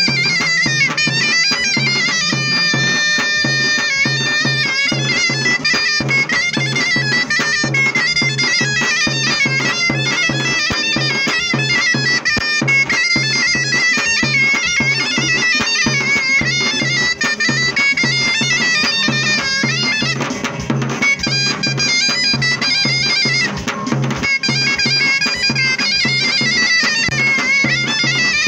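Zurna, a Turkish double-reed shawm, playing a fast, ornamented folk melody without a break, over a steady low beat.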